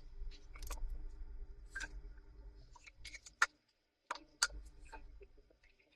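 Scattered sharp clicks and taps of a laptop's plastic case being handled and closed up, over a low hum.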